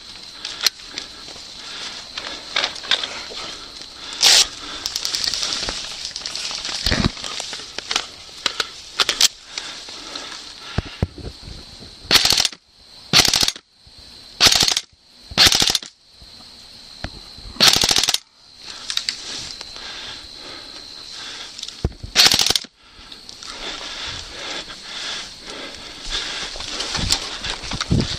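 Airsoft guns firing scattered pops and short bursts, with several louder rushes of noise about half a second long in the middle of the stretch.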